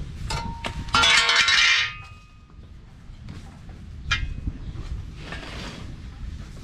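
Metal clanging as steel parts are handled. A loud ringing clatter starts about a second in and lasts most of a second, and a single sharp clink follows a few seconds later.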